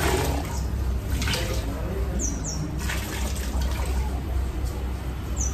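Water splashing and dripping into a plastic bucket as a wet cotton towel is wrung out and rinsed by hand. A bird gives two quick falling chirps about two seconds in and again at the end, over a steady low rumble.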